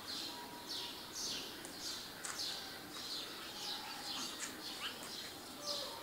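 Small songbirds chirping: a continuous run of short, high chirps that slide downward in pitch, coming one to two times a second, over a faint hiss.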